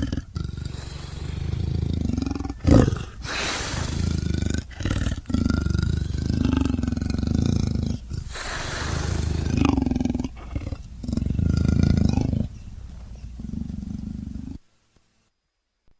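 Cave bear creature sound effects: a run of deep, raspy roars and growls, one after another with brief breaks. The loudest is a short burst about three seconds in, and the sound stops shortly before the end.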